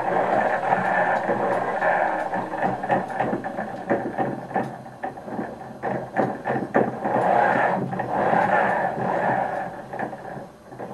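Electric wheel motors of a homemade self-balancing platform whining as they drive the wheels back and forth, the pitch rising and falling, with a run of rattling clicks and knocks from the drive in the middle. The sound drops away briefly near the end.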